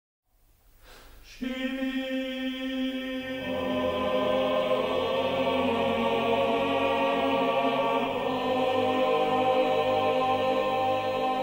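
Film-score choir singing a slow, sustained chord. It swells in from silence, enters fully about a second and a half in, and grows fuller as lower voices join a couple of seconds later.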